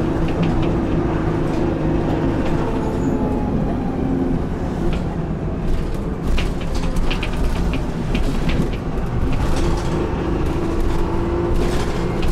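Dennis Dart SLF single-deck bus on the move, heard from inside the saloon: a steady engine drone and drivetrain hum, with interior fittings rattling in short clusters in the second half.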